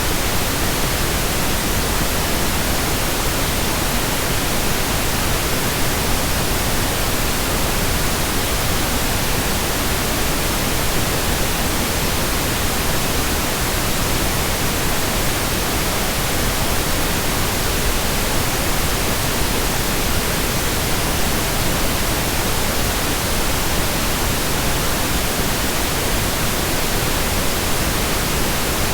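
Pink noise: a steady, even hiss spread evenly across all pitches, with no changes or events.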